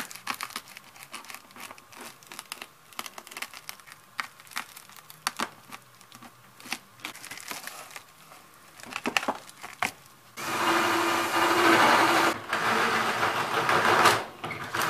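Foil-faced bubble insulation crinkling and tearing as a circle is cut and pulled out by hand. About ten seconds in, a handheld power drill starts and runs steadily at full speed, boring up through the ceiling at the marked flue spot.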